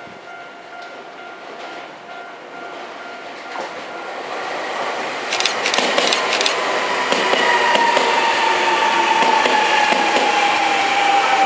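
Keio 1000-series electric commuter train approaching and passing over a level crossing. Its noise builds through the first half, with a quick run of wheel clacks over rail joints about five to six seconds in, then steady rolling noise and a motor whine that slowly falls in pitch.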